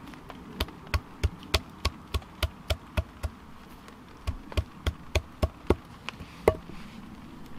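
A hatchet striking horse chestnut pieces on a wooden log block, crushing them into a mash. Quick taps, about three a second, in two runs with a short pause between, then one harder strike near the end.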